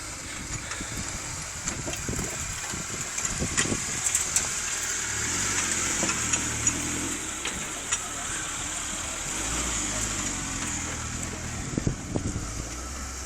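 Off-road vehicle's engine running while driving over rough ground, with scattered knocks and rattles from the bumps.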